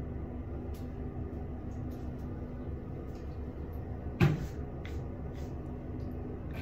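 A single sharp knock about four seconds in, the loudest sound, with a few faint small clicks over a steady low hum.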